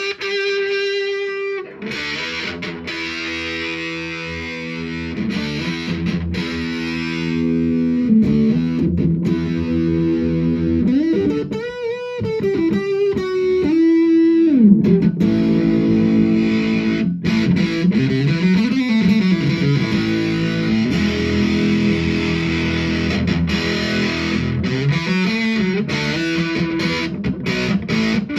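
Electric guitar played through a Dolamo fuzz pedal, giving a fuzzy, distorted tone. Riffs and single notes, with several string bends in the middle of the passage.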